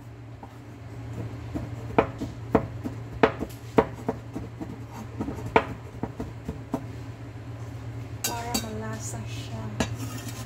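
Chinese cleaver chopping small black beans on a wooden cutting board: a string of sharp, irregular knocks of the blade striking the board, about ten in all, fewer toward the end.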